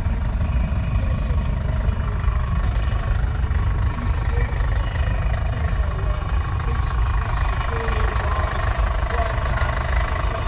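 Massey Ferguson 165 tractor's four-cylinder engine idling steadily.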